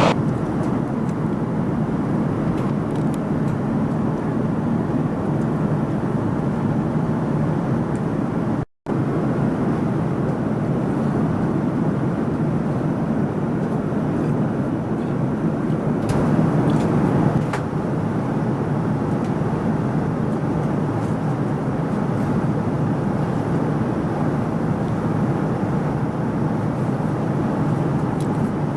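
Steady airliner cabin noise inside a Boeing 787 Dreamliner in flight: an even rush of engine and airflow noise. It drops out for an instant about nine seconds in.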